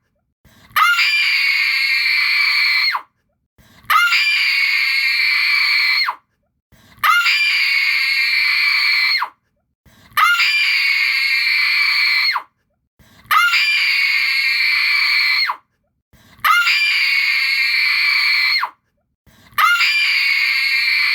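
A woman screaming in terror, the same high, desperate scream repeated seven times, each about two seconds long with a short upward swoop at its start and brief silences between.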